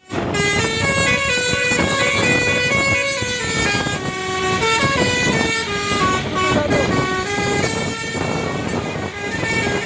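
An Indonesian bus's 'telolet' basuri air horn playing a tune: a run of steady notes that step up and down, over a rough hiss.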